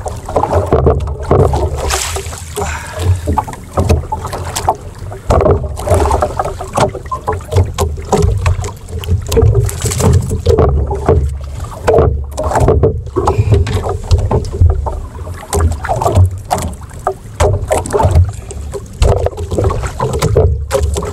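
Wind buffeting the microphone, with waves slapping against the hull of a small outrigger boat, in uneven surges.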